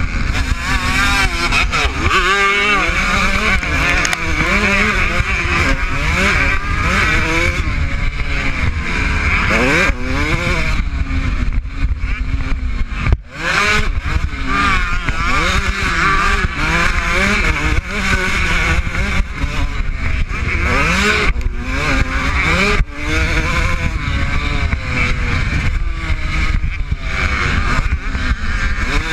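Kawasaki KX125's two-stroke single-cylinder engine revving hard and falling off again and again as the rider works the throttle and shifts through the gears, with wind buffeting the microphone. The engine note drops away sharply for a moment about halfway through.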